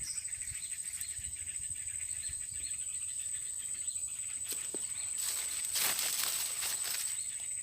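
A high, steady insect trill, with a short rustling hiss about five seconds in.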